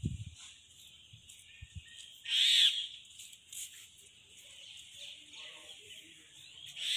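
Birds calling outdoors: two loud calls, one about two and a half seconds in and another near the end, over a steady high-pitched background chorus.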